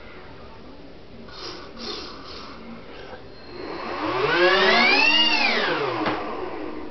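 Small electric motor of a homemade RC boat built from Blade CX2 helicopter parts, throttled up and back down once: a whine rising in pitch and then falling, lasting about two and a half seconds. A few short bursts of sound come before it.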